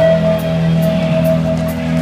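Live rock band playing: sustained chords held over a steady cymbal tick a little over twice a second.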